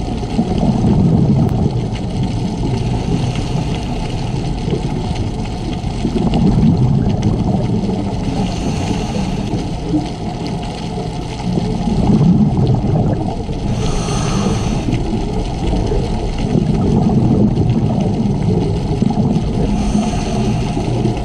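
Scuba diver's regulator breathing heard underwater: low bubbling rumbles from exhaled air, with a short hiss of inhalation about every six seconds.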